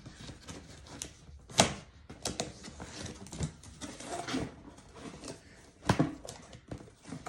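A cardboard box and its packaging being opened by hand: irregular knocks, scrapes and rustles, with two louder knocks about a second and a half in and near six seconds.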